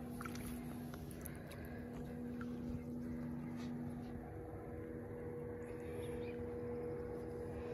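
A steady low hum of a few constant tones, one of which stops about four seconds in, with faint water sounds as a bass is held at the surface beside a boat and released.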